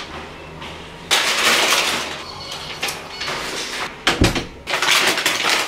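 A paper takeaway bag rustling as it is handled, and a front door shutting with a single low thud about four seconds in, followed by more rustling.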